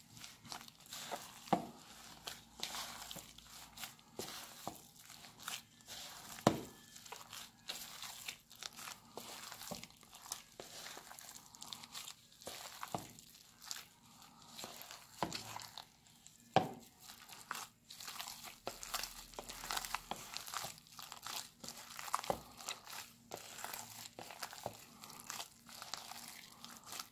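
A gloved hand kneading wet ground chicken mixed with egg and breadcrumbs in a bowl: irregular squishing and crinkling of the disposable glove in the mince, with a few sharper knocks against the bowl.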